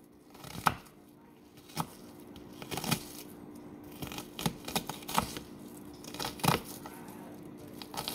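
Kitchen knife dicing a red onion on a cutting board: crisp cuts through the onion and knocks of the blade on the board, coming irregularly about once a second.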